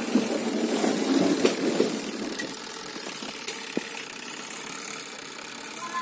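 Sanken twin-tub washing machine's wash motor running steadily, a little louder in the first couple of seconds and then settling, with a few light clicks.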